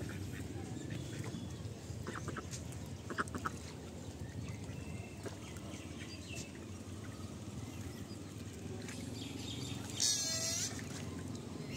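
Ducks calling now and then over a steady low background noise, with one louder, high-pitched call about ten seconds in.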